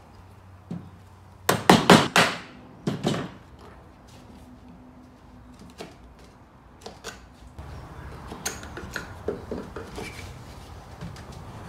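Chisel work on a wooden board: a quick cluster of sharp wooden knocks about a second and a half in, then two more about a second later. Lighter clicks and knocks follow as the board is handled.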